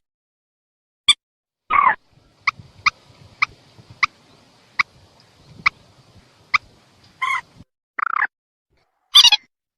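Mandar (rail) calls from a bird-lure recording: sharp single notes, then a run of short, evenly spaced notes about every two-thirds of a second, with harsher, longer calls about two seconds in and again near the end.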